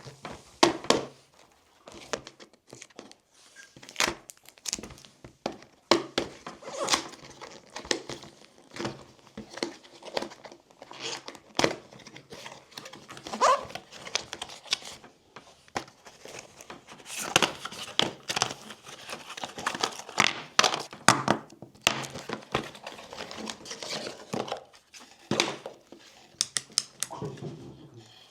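Packaging being unwrapped by hand: plastic and cardboard crinkling and tearing, with irregular clicks and knocks from handling.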